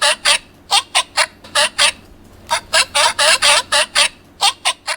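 Sea lions barking: a quick run of short barks in uneven groups, played back as a recording from a sound book.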